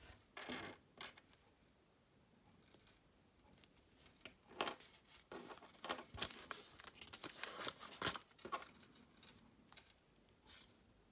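Handling noise from a Kinder Surprise egg and its small plastic toy: scattered short clicks and rustles, a couple near the start, then a dense run in the middle, and one more near the end.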